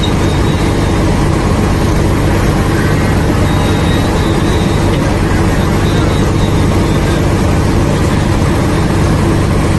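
Fishing boat's engine running steadily: an even, unchanging drone with no starts, stops or changes in speed.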